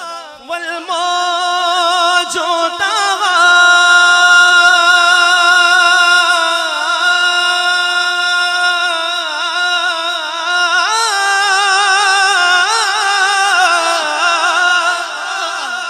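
A man's solo voice holds one long melismatic note with a wavering vibrato in an unaccompanied naat recitation, sung into a handheld microphone. The note steps up in pitch about eleven seconds in and eases back down near the end.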